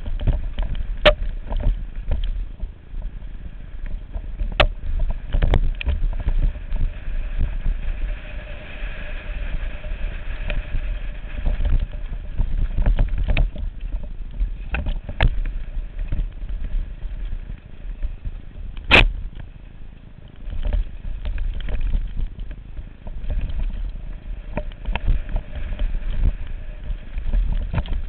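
Mountain bike ridden fast down a rough dirt trail: a steady low rumble with rattling and sharp knocks as the bike hits bumps and roots, the loudest knock a little past halfway.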